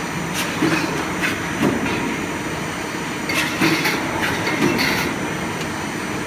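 Mechanical double-action power press running, blanking and deep-drawing stainless steel strip: a steady machine din with repeated metallic clanks of the press strokes and parts, the loudest roughly once a second.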